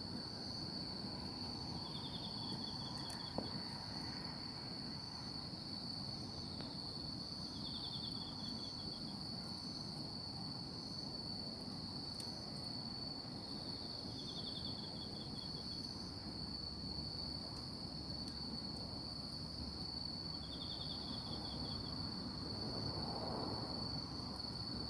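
Night insects calling: one keeps up a steady high trill while another gives a short pulsed chirp about every six seconds. A single sharp click sounds about three seconds in.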